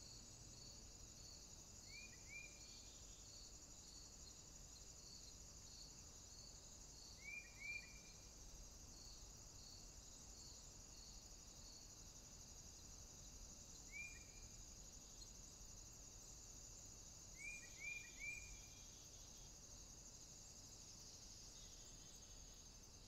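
Faint cricket-like insect chirping that pulses about three times a second over a steady high hiss, with short bird-like chirps four times, singly or in quick runs of two or three.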